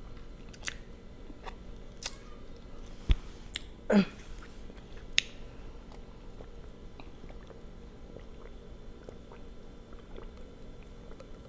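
Quiet close-up mouth sounds of eating and drinking: scattered wet clicks and smacks. A low knock comes about three seconds in, and a short voiced mouth sound follows about four seconds in.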